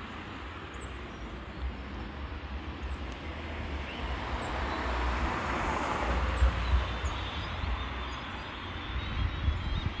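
Outdoor background noise: wind rumbling on the microphone over a steady rush of passing traffic that grows louder toward the middle and then eases off.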